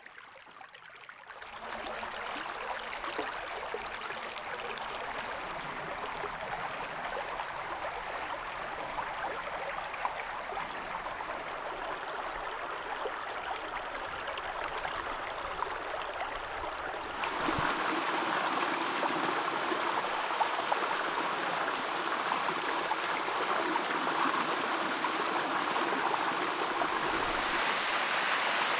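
Steady rush of running water with no pitch or rhythm to it. It grows louder in steps about a second and a half in and again about two-thirds of the way through. Near the end it is a thin waterfall spilling down a sandstone cliff face.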